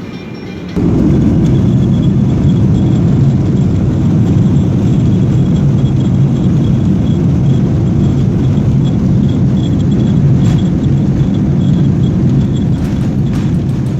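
Steady low rumble of a moving vehicle, starting abruptly a little under a second in.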